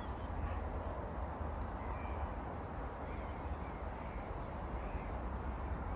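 Steady wind rumble on the microphone, with faint calls of distant birds, crow-like caws, repeating about every half second from about two seconds in.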